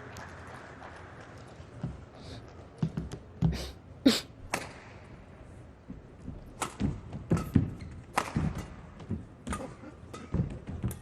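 Badminton rally: sharp racket strikes on the shuttlecock and thuds of players' footwork on the court, irregular, starting about two seconds in.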